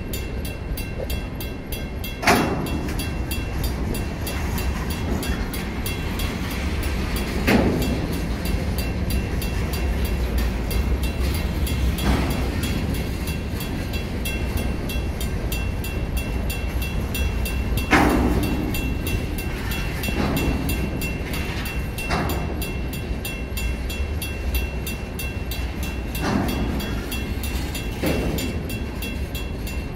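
Freight train of center-beam flatcars rolling past a grade crossing: a steady rumble of wheels on rail, with a loud clunk every few seconds as wheels pass a joint. A mechanical crossing bell rings rapidly over it.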